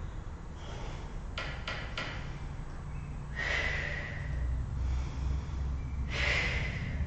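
A woman breathing hard during a seated core exercise, with two long, noisy exhalations about three and a half and six seconds in. A few faint clicks come shortly before them.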